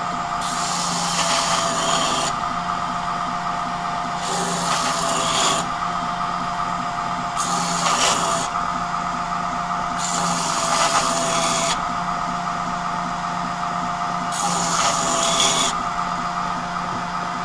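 Wilmont belt grinder running with a steady hum, with five passes of a mild-steel knife blade pressed against its abrasive belt on the small-wheel plunge attachment, each pass a hiss of grinding lasting one to two seconds. The blade is being rocked along the belt to walk the grinding scratches up toward the tip.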